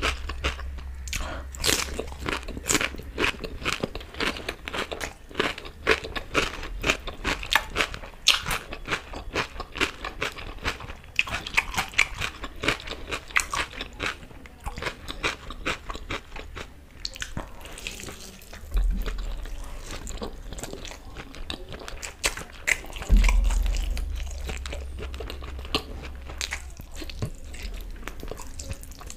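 Close-miked eating sounds: crisp crunching bites and chewing of a raw cucumber slice, followed by wetter chewing on a chicken leg in curry. Irregular crunches and mouth clicks, densest in the first half.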